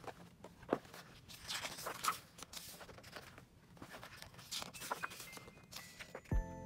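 Stiff, heavy pages of a large photobook being turned by hand, paper swishing and rustling several times with a few sharp flicks. Background music comes back in suddenly near the end.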